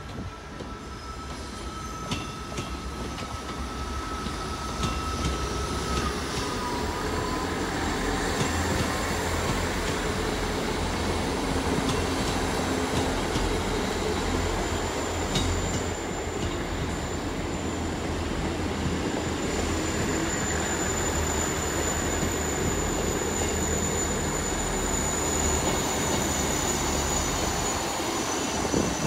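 Diesel multiple-unit trains running in, their engines growing louder over the first several seconds. A whine steps down in pitch about six seconds in, and a steady high-pitched squeal from the wheels or brakes carries on from about eight seconds in.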